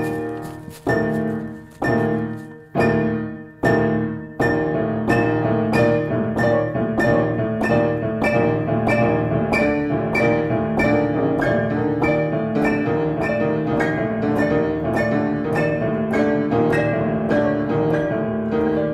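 Piano music: slow single struck chords about once a second, each dying away, then from about four and a half seconds a quicker, even run of notes that carries on.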